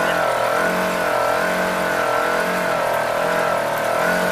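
Side-by-side off-road vehicle's engine running under way, its note wavering up and down steadily.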